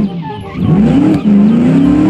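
Car engine revving sound effect. After a short up-and-down swoop its pitch climbs steadily in a rising whine.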